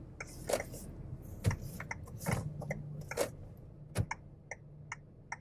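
Car's turn indicator ticking steadily inside the cabin, about two or three ticks a second, over a low engine hum, with a few soft crunching thumps in between.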